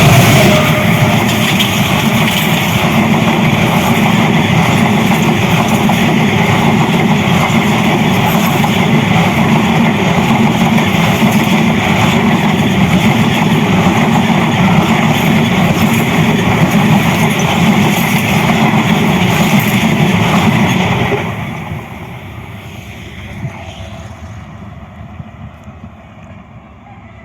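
Express passenger train passing at high speed across a river bridge, its coaches rolling by in a loud, steady rush of wheel and track noise. About three quarters of the way through, the last coach passes, the noise drops off sharply and then fades into the distance.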